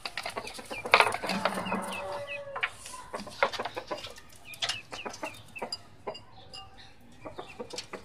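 Chickens clucking, mixed with short high chirps and scattered sharp clicks and knocks, the loudest about a second in.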